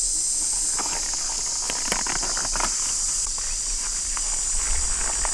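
Steady high-pitched insect drone, with scattered light taps and rustles in the first half.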